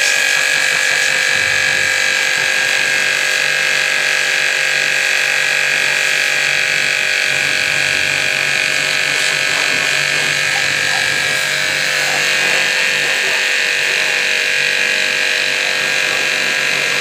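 High-pressure washer running steadily: the pump motor hums under the hiss of the water jet spraying a stripped motorcycle frame and engine.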